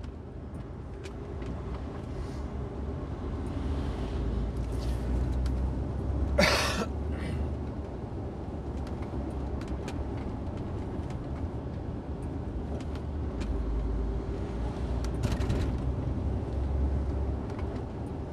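HGV flatbed lorry driving on the road, its engine and road noise running steadily, with one short, sharp noise about six seconds in.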